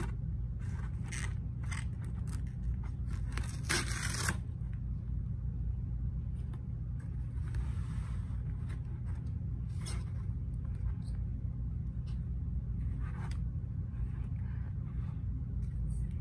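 Cardboard mailer box being handled: flaps folded back and the shrink-wrapped phone box sliding out against the cardboard. There is a run of scrapes and rustles in the first few seconds, the longest about four seconds in, then only scattered soft rustles and taps over a steady low hum.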